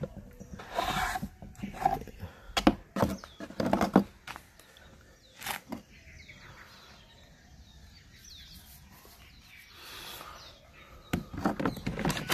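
Clicks and knocks of hard plastic being handled on a Worx WG368E cordless chainsaw: a quick string of clicks as the orange bar-oil cap is turned shut, then near the end another cluster of clicks as the 40V battery pack is slid into its slot on the saw.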